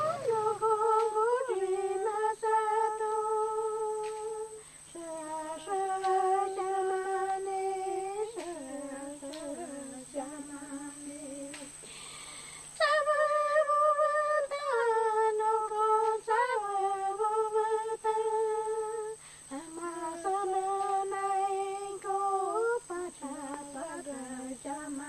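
A Shipibo woman's voice singing a sacred chant in long, held notes, phrase by phrase, with short breaks for breath between phrases.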